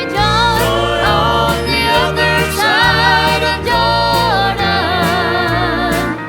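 Gospel song: singing with a wide vibrato over instrumental accompaniment, the bass stepping to a new note about once a second.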